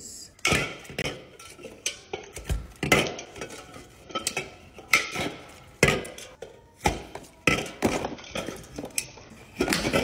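Aluminium drink cans being pulled from a plastic ring carrier and set down on a counter: a run of irregular clinks and knocks.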